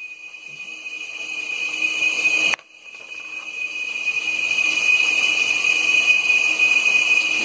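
Hands rubbing hair styling cream together close to the microphone, a rustling hiss that grows louder, over a steady high whine. The sound cuts off briefly about two and a half seconds in.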